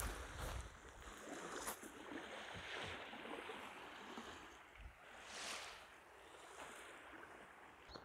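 Faint outdoor background of light wind and small waves washing onto a sandy shore, with one brief swell of hiss about five and a half seconds in.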